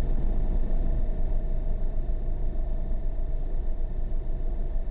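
Wind buffeting the microphone: a low, gusty rumble that flutters in loudness, with a faint steady hum above it.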